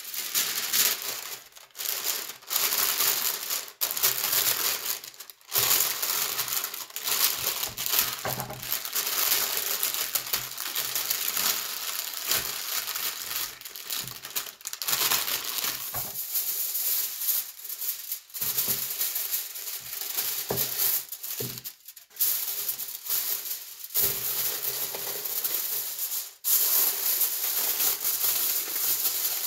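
Baking paper and aluminium foil crinkling as they are pressed and tucked down over a baking tray. The crackling comes in stretches broken by short pauses.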